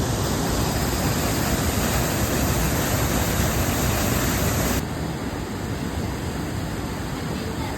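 Steady rush of falling water from a waterfall. About five seconds in it drops abruptly to a quieter, duller rush.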